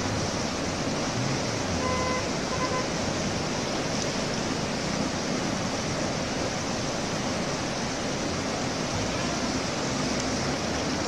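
Rapids of a boulder-strewn mountain river rushing steadily over rocks.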